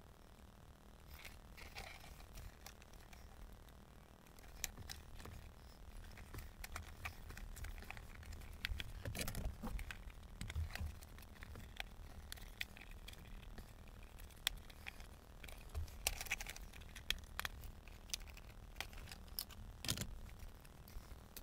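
Scattered clicks, taps and plastic rattles of hands taking apart car dashboard trim and an instrument cluster.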